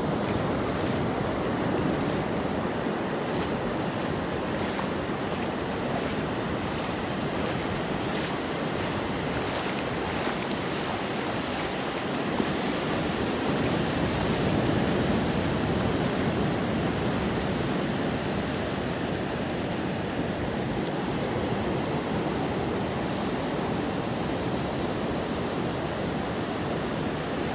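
Ocean surf: waves breaking offshore and foam washing up over the wet sand, a continuous rushing wash that swells a little louder about fifteen seconds in.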